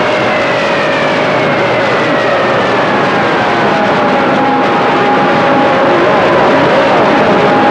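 Open CB radio channel hissing with static. Over the static run two steady whistles and several slow downward-gliding whistles, the squeal of radio carriers beating against each other.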